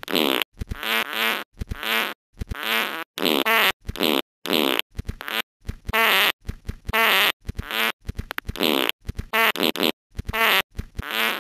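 Cartoon fart sounds from the Talking Tom Cat app: over a dozen short, buzzy bursts, one after another, with dead silence between them.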